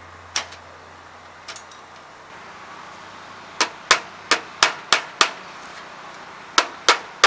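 Hammer driving a nail through aluminum fascia: a single sharp tap and a few light clicks, then a quick run of six sharp strikes about three a second, and after a short pause three more.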